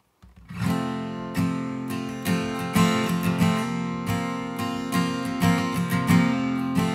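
Steel-string dreadnought acoustic guitar strummed with a capo on the first fret, starting about half a second in. It plays the song's intro, alternating E and A/E chord shapes that sound in F, with a strum pattern of steady strokes.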